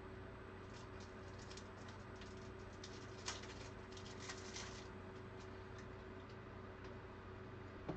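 Faint clicks and short rustles of trading cards being handled and slid through, busiest for a second or two midway, over a steady low electrical hum.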